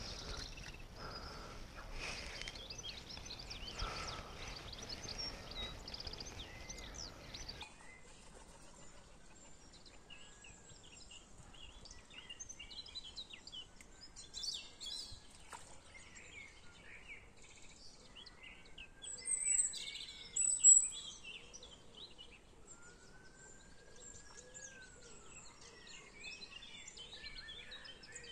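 Outdoor birdsong: several birds singing and chirping in short high calls, loudest a little past the middle. For the first few seconds a steady rushing hiss lies under the birds, then it cuts off abruptly.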